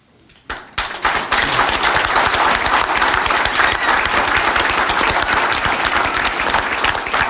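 A roomful of people applauding, breaking out suddenly about half a second in and holding steady as a dense patter of many hands clapping.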